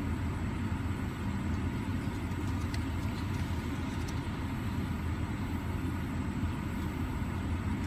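Steady low rumble of a car idling, heard from inside the cabin.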